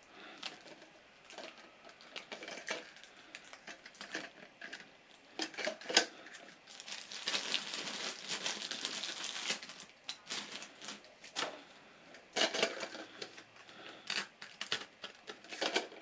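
Hard plastic parts of a new Fluidmaster toilet fill valve clicking and rubbing as they are handled and fitted, with scattered sharp clicks and a denser rustle from about seven to ten seconds in.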